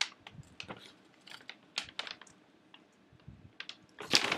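Paper target being handled in front of the camera: scattered soft crinkles and small clicks of the paper, then louder paper rustling starting near the end as it is moved.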